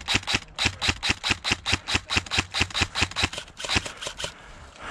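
Electric airsoft rifle (AEG) firing a rapid string of about twenty shots, about five a second, each a sharp click, stopping about four seconds in.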